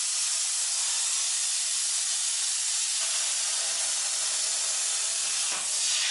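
Plasma cutting torch on a CNC plasma cutting machine, giving a steady, loud hiss as it cuts, with a brief dip in the sound near the end.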